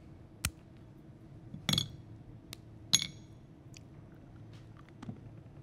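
A few light clinks and clicks of small hard objects against small ceramic plates as chocolate is handled and picked up. The loudest two clinks come near the middle, each with a short ring.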